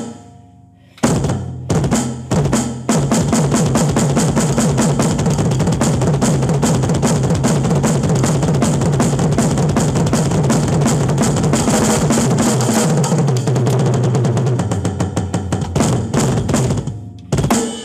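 Acoustic drum kit played in a fast solo: after a brief pause and a few single strikes, a long dense barrage of rapid rolls across the snare, toms and bass drum, breaking off near the end with one last hit.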